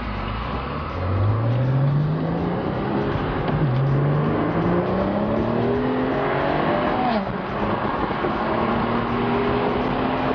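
2011 BMW 335i coupe's turbocharged inline-six with an aftermarket downpipe and Vishnu exhaust, heard from inside the cabin while accelerating through the gears. The engine note climbs, drops at an upshift about three and a half seconds in, climbs again, drops at a second upshift about seven seconds in, then pulls on.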